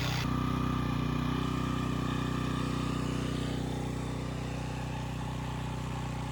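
Compact diesel tractor engine running steadily.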